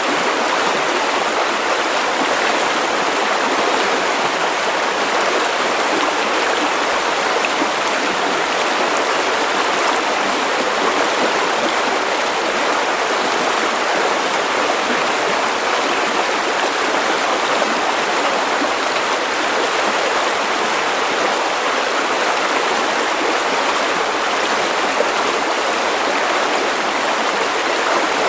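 River water running over stones, a steady rushing and babbling with no change in level.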